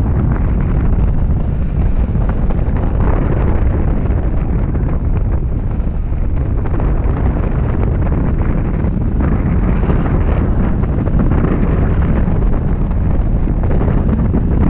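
Wind rushing over a camera microphone on a hang glider in flight: a loud, steady, deep buffeting rumble that flutters without letting up.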